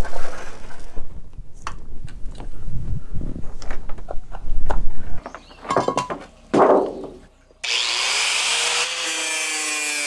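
Boards and a thin stainless steel sheet clattering and scraping as they are handled. Then, about three-quarters of the way in, an angle grinder starts suddenly and runs loud and steady as it cuts the sheet to length.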